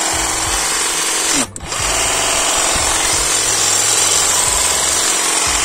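Parkside PHSA 20 Li A1 20 V cordless hedge trimmer running with no load, its reciprocating blades giving a steady buzz, now at full speed on a charged battery. The motor cuts off and winds down briefly about a second and a half in, then starts again. The owner calls it not particularly noisy.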